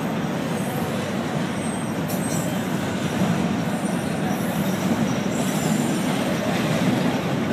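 CSX freight train rolling past at close range: a steady rumble of steel wheels on the rails, with a few brief high squeals from the wheels.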